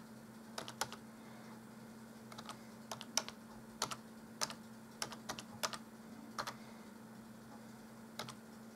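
Typing on a computer keyboard: key clicks in short irregular runs with brief pauses, over a faint steady hum.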